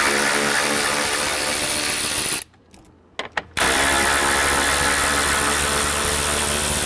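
Cordless electric ratchet spinning out 10 mm bolts along the top of the truck's front end. Its motor whines steadily in two runs, split about two and a half seconds in by a one-second pause with a few clicks.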